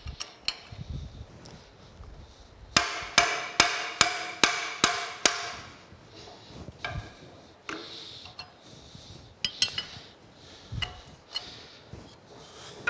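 Hammer striking a wrench on a tight 1¼-inch cylinder stud nut of a steam locomotive stoker engine, six blows at about two a second, each with a ringing metal clang, to break the nut loose. Scattered lighter metal clicks and clinks of the wrench on the nut follow.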